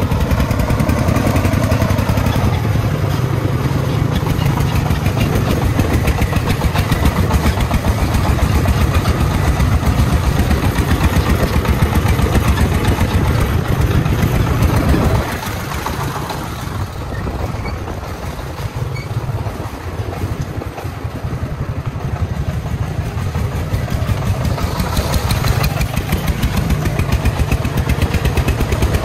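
Single-cylinder diesel engine of a công nông (homemade Vietnamese three-wheeled truck) running steadily with a fast, even chug. It drops in loudness about halfway through and rises again near the end.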